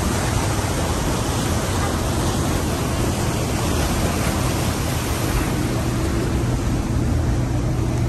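Water rushing and churning along the hull of a lake cruise boat under way, a steady wash of noise with a low, even hum from the boat's engine underneath.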